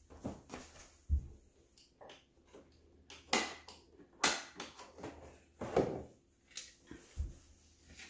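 Hard plastic knocks and clicks as a Roomba's dust bin is unlatched and slid out of the robot, with the plastic food-storage containers on top rattling: a string of separate clatters, a few of them louder, and some low thumps.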